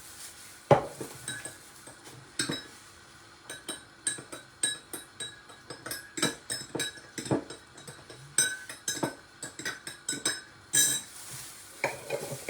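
A spoon stirring a mixture in a cup, clinking repeatedly and unevenly against the sides with short ringing chinks, several a second at times. There is one sharper knock about a second in.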